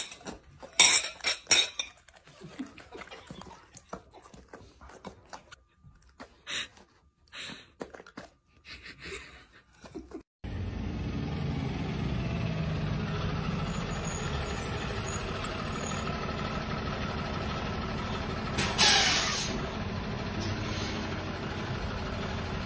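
A fork clinking and scraping on a plate, with a dog eating. Then a steady vehicle-engine rumble, broken a few seconds before the end by a short, loud hiss.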